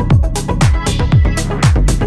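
Background music with a steady dance beat, about two drum beats a second.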